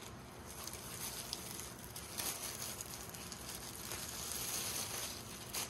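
Quiet, continuous crinkling and rustling of a thin clear plastic bag as a rolled diamond painting canvas is slid out of it.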